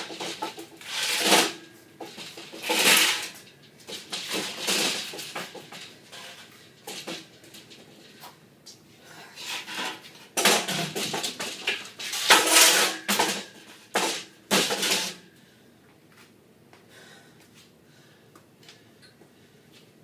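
A man exercising on a metal power tower (dip and pull-up station), giving a series of loud, noisy bursts. The bursts come in an irregular run, thickest from about ten to fifteen seconds in, and stop after that.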